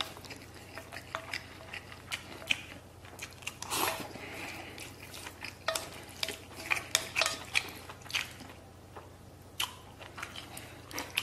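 Wooden chopsticks clicking and scraping against a metal bowl in many irregular, sharp little knocks as rice and braised beef are stirred and scooped, with mouth-close chewing in between.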